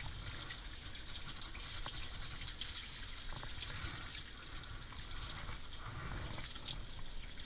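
Water from a hand-held hose sprayer running steadily onto a dog's wet coat, rinsing the head.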